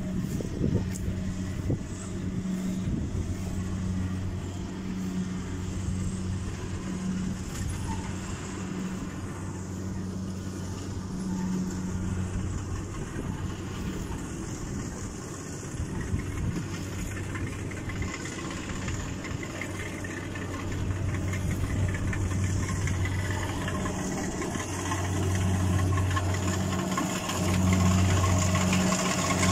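Kubota rice combine harvester running as it cuts the crop, a steady engine drone that grows louder over the last few seconds as the machine comes closer.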